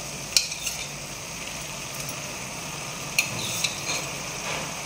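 Metal spoon stirring thick dried-fish gravy in a metal kadai, clinking against the pan about half a second in and twice around three seconds, over a steady hiss from the simmering pan.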